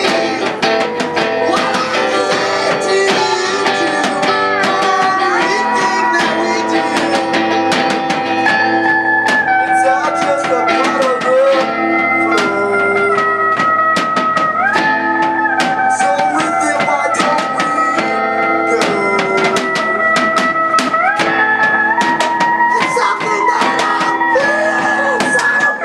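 A live rock band playing loud amplified music: electric guitar and drum kit with cymbal hits, under a lead line of long held notes that slide between pitches.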